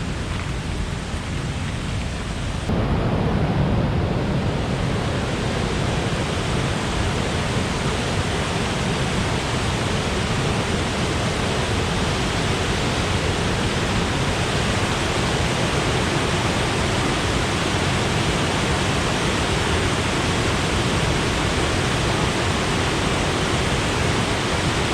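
Waterfall on the Willow River rushing in a steady, even wash of water, running high and rough after overnight storms. It gets louder and fuller about three seconds in.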